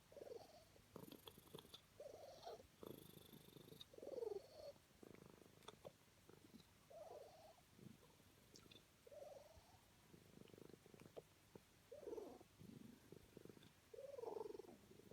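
Faint, rhythmic snoring from a sleeping pet, a snore about every two to three seconds.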